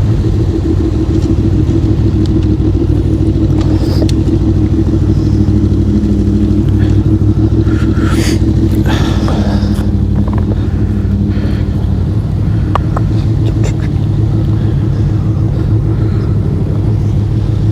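Motorcycle engines running steadily at low revs, with a few light clicks and knocks over the top.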